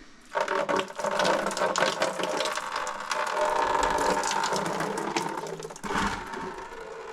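A small motor-driven mechanism runs for about five seconds with a rattling clatter of clicks, then stops abruptly and is followed by a single knock.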